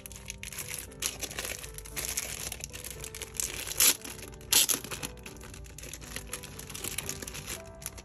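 Thin clear plastic packaging bag crinkling and rustling as it is handled and peeled open to slide a tablet case out. Two louder, sharp crackles come about four seconds in. Background music plays underneath.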